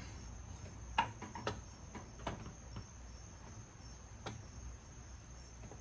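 Crickets chirping steadily in the background, with a few faint metallic clicks and taps from a water pump and its bolts being fitted by hand, the sharpest about a second in.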